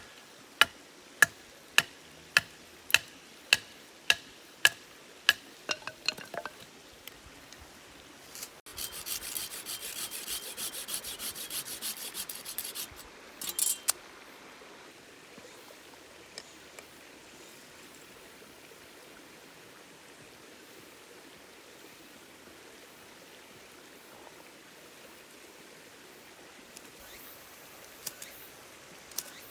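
Knife chopping on a cutting board in steady strokes, about three every two seconds, stopping about six seconds in. Then a few seconds of rustling or scraping and a single knock, after which only the steady murmur of a stream remains.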